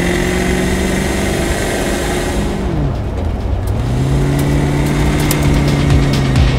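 Land Rover Discovery's petrol engine pulling under way, heard from inside the cabin over road noise. About three seconds in the engine note falls away, and a second later it picks up again at a slightly lower pitch.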